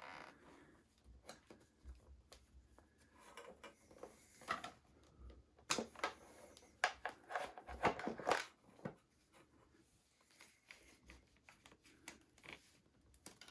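Faint rustling and rubbing of a wiring lead and plastic connector being pulled by hand through a motorcycle's frame, with scattered small clicks and knocks. It is busiest in the middle and quieter near the end.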